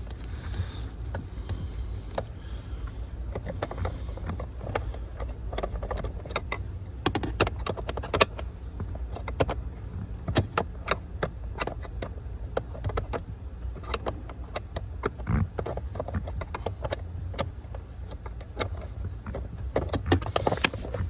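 Irregular small clicks and taps of hands and a screwdriver working on steering-wheel trim pieces, over a steady low hum.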